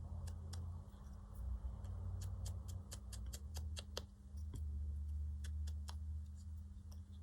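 Quick, irregular light taps and clicks, several a second, as an ink pad or ink blending tool is dabbed onto the torn edge of a card tag to colour it, over a low handling rumble.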